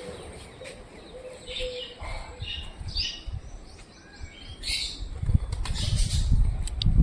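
Birds chirping in short, scattered calls. A rough, low rumbling noise comes in during the last two seconds.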